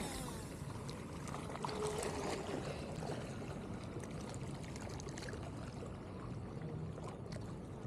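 Small waves lapping and trickling against a stony lakeshore, a steady watery wash. There is a brief swish right at the start as the rod is cast.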